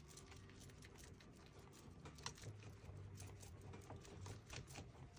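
Faint, irregular dabbing taps of a mottling sponge on a silicone doll's painted skin, several small pats a second.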